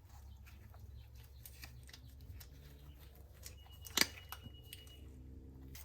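Small metal carburetor parts clicking and tapping as they are fitted back together by hand, with one sharper click about four seconds in, over a low steady hum.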